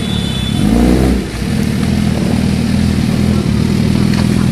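Engine of a custom four-wheeled motorcycle-style quad running at low speed, with a short rev up and back down about a second in.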